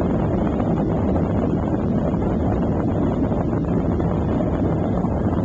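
Boeing airliner cabin noise while taxiing: the jet engines and airflow make a steady low rumble inside the cabin, even in level throughout.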